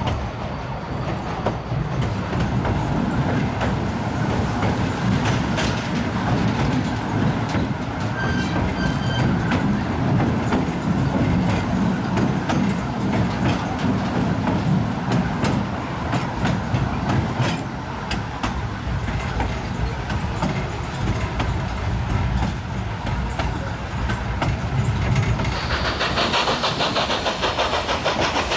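Narrow-gauge steam passenger train running on three-foot-gauge track: a steady low rumble with the clicking of wheels over the rail joints. A steady hiss joins near the end.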